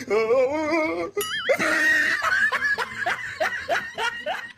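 Comic laughter sound effect laid over music: a wavering, warbling tone, then a quick rising glide, then a run of short laugh notes about four a second.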